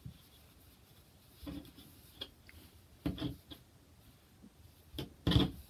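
Hands working thick merino wool roving on a tabletop, knitting a purl stitch by hand: soft rubbing and rustling in a few brief scuffs, the loudest near the end.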